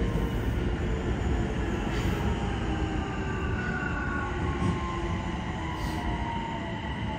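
Yokohama Municipal Subway 4000 series train, heard from inside the car, running over a low rumble of wheels on rail. The Mitsubishi hybrid SiC VVVF inverter's whine falls steadily in pitch as the train slows for a station.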